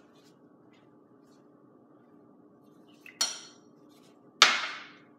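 Two sudden clatters of cups and plates being handled on a stone countertop, about a second apart, the second louder and trailing off for a moment.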